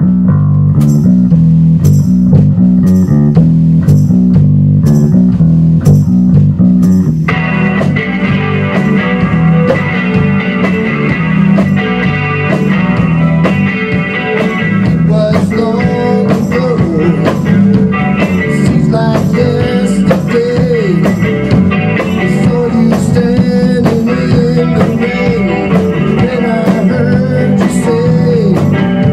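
Rock band playing a blues number: electric bass and drum kit, with cymbal ticks at an even beat. An electric guitar comes in about seven seconds in, and bending notes follow later.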